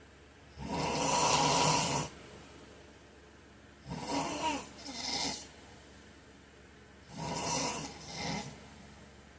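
A man snoring in his sleep: three snores about three seconds apart, the first one long and unbroken, the next two each broken into two parts.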